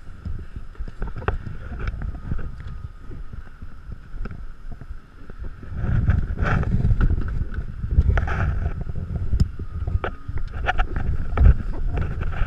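Wind buffeting a GoPro's microphone as a low rumble that grows louder about six seconds in, with a faint steady whine and scattered small knocks and taps from handling.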